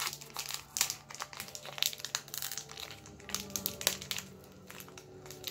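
Foil wrapper of a Pokémon Sun and Moon booster pack crinkling and crackling as it is worked open by hand, in irregular crackles that thin out later on.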